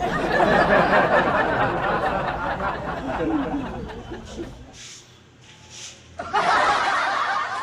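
Canned crowd laughter: a laugh track that fades away over the first few seconds and then bursts in again loudly about six seconds in.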